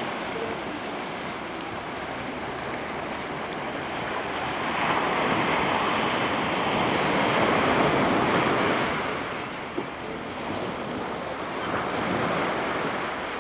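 Ocean surf washing onto a sandy beach, a steady rushing that swells louder about halfway through and again near the end.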